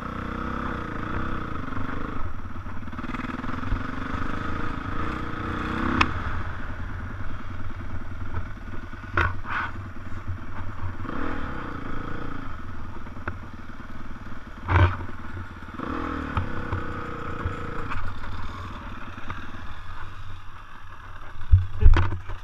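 Dirt bike engine being ridden, its pitch climbing and falling repeatedly as the throttle is opened and eased off, with a few sharp knocks along the way. There are several loud thumps near the end.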